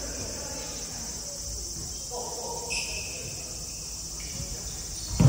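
Futsal game sounds in a sports hall over a steady high-pitched insect-like buzz. A short squeak, like a shoe on the wooden floor, comes about three seconds in, and a loud thud of the ball comes at the very end.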